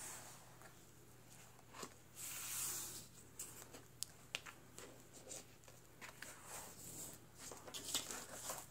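Painted paper pages of an art journal turned and handled by hand: a soft swish about two seconds in as a page turns over, then small crinkles and ticks as the pages are smoothed and a fold-out page is drawn open. Faint.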